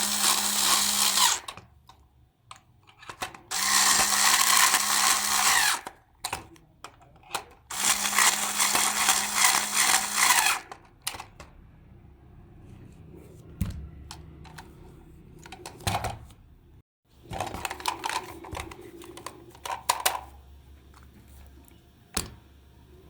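A small electric power tool running in three short bursts of about two seconds each, with a steady hum under a hissing whirr, followed by a few clicks and a fainter, shorter run near the end.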